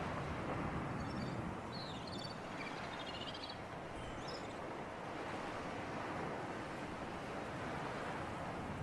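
Sea surf and sea breeze: a steady, even wash of waves and wind. Between about one and four and a half seconds in, a few short high chirps sound over it.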